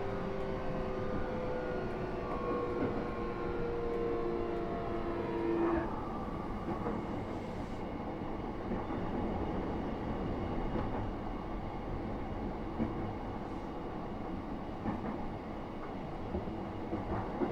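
E233 series 3000 electric train running, heard from inside the passenger car. Its traction motor whine slides slowly downward in pitch as the train slows, then cuts off about six seconds in, leaving the steady rumble of wheels on rail.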